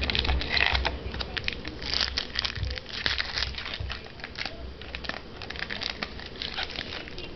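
A trading-card pack being opened and handled: the wrapper crinkling and tearing, with cards flicking against each other in a dense run of small crackles, busiest in the first few seconds.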